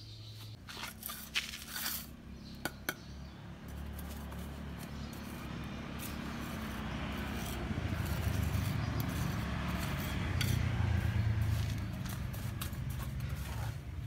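Brick and trowel clinking and scraping during bricklaying, with several sharp clinks in the first few seconds. Under it, a steady low rumble grows louder toward the end.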